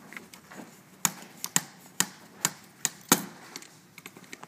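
Sharp metal clicks and taps from a star-bit screwdriver working the screws that hold the heat sink on a laptop video card, about seven irregular clicks over two seconds, starting about a second in.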